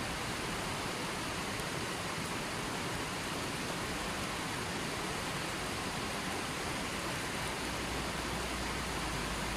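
River water flowing steadily, an even rushing sound with no breaks.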